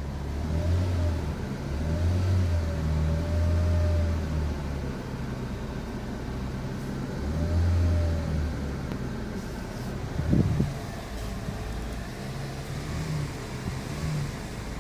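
Car driving and accelerating in swells: a low rumble with a faint whine that rises and falls, and a single knock about ten and a half seconds in. The car has a grinding noise when accelerating.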